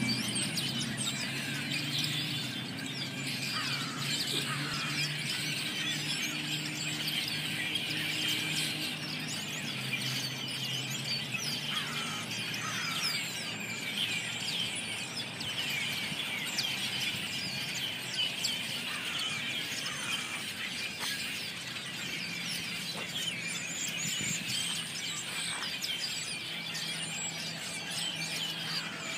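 A large flock of red-winged blackbirds calling together from the treetops: a dense, unbroken chorus of overlapping squeaky, chattering calls.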